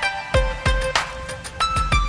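Background music with a steady beat: a deep kick drum and sharp percussion under a melody of short, pitched notes.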